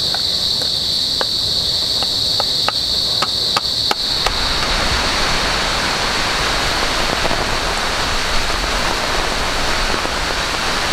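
A spoon tapping and scraping chopped garlic out of a small bowl into a camp pot: a string of light clicks over a steady high insect drone. About four seconds in this gives way abruptly to heavy rain pouring down on the forest, a dense, even hiss.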